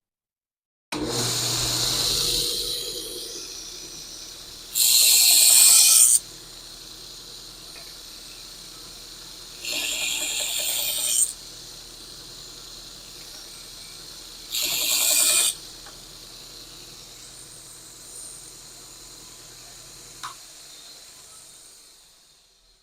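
Belt sander switched on about a second in and running steadily, with a steel knife blank pressed against the belt for three grinding passes of about a second each, cutting a bevel. Near the end the sander is switched off and spins down.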